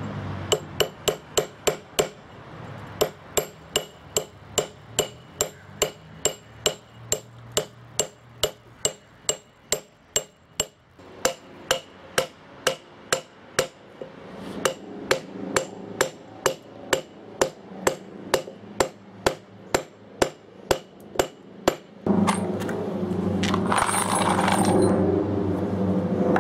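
A hand hammer tapping steel wedges and feathers (shims) set in a row of drilled holes in a bluestone slab, splitting it along the line: dozens of quick ringing metal-on-metal strikes, about two to three a second, with a few short pauses. Near the end the tapping stops and a steady humming sound takes over.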